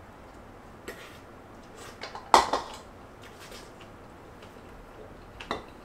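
Eating utensils clinking against a bowl and pot while eating: a few light clicks and one sharper clink a little over two seconds in.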